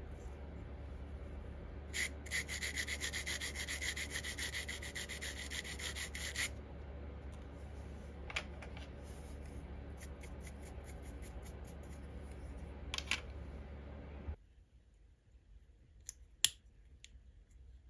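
Fast, even back-and-forth sanding strokes on a small plastic model part, lasting a few seconds, then a few scattered short scrapes and light clicks. A steady low hum underneath cuts off suddenly about three-quarters of the way through.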